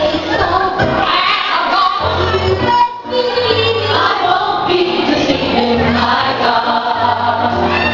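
Upbeat gospel-style song with a choir of singing voices over a bass beat. The sound drops out briefly about three seconds in.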